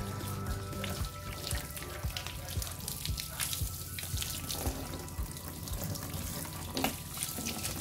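Water from a garden hose spraying onto a scooter's plastic bodywork and splashing onto the tiled floor, with background music.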